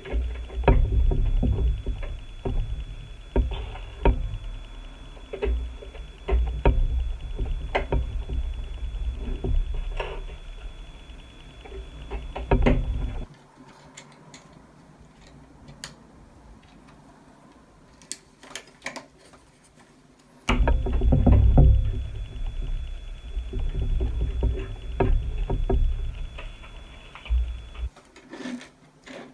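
Hands pressing and snapping plastic LEGO bricks together on a model carriage over a tabletop: dull rubbing and knocking against the table mixed with many small sharp clicks. From about 13 to 20 seconds in, the knocking stops and only scattered clicks of the pieces are heard.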